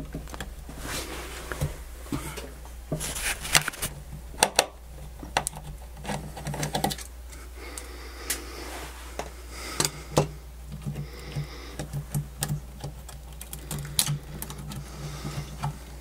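Irregular clicks, taps and short scrapes of a circuit board and its wiring being handled and worked loose from a cassette deck's metal chassis, over a steady low hum.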